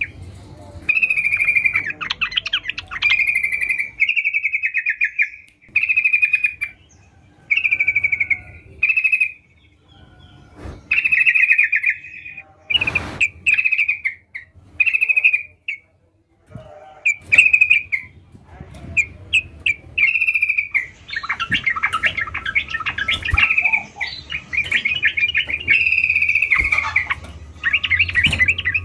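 Yellow-vented bulbul (trucukan) singing: short, bubbly chattering phrases about a second long, separated by brief pauses, running into near-continuous song over the last several seconds. A short noisy burst comes about halfway through.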